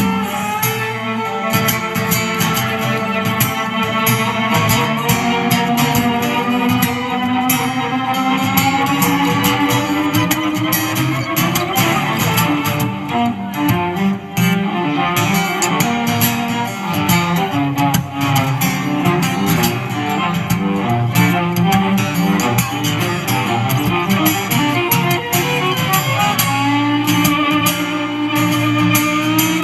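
Live rock band playing an instrumental break: a lead line of long, gliding sustained notes over strummed guitar and drums.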